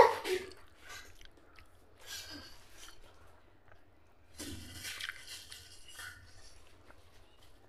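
Close-up eating sounds: a loud wet bite and chew right at the start, then quieter wet squishing as a hand mixes rice and curry on a plate about four to six seconds in.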